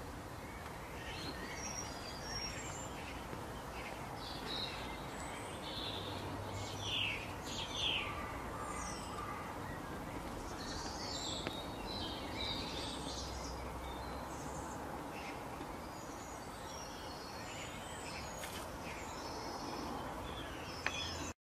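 Several birds chirping and calling in short, quick phrases over a steady outdoor background hiss. The sound cuts off abruptly near the end.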